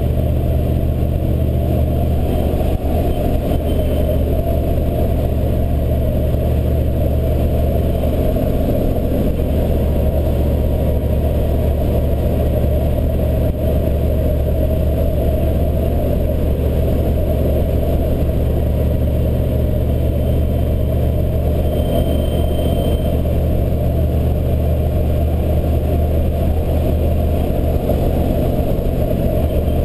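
1983 Chevy C30 pickup with the 6.2-litre V8 diesel driving at a steady cruising speed: a constant, even engine and road drone with no revving or shifting.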